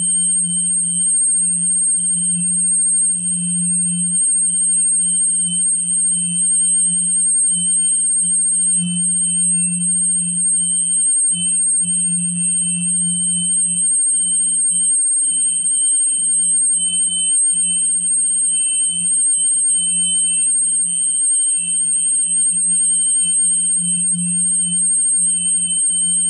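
Steady electronic tones: a continuous high whine over a low hum that swells and dips unevenly, with a fainter wavering tone between them.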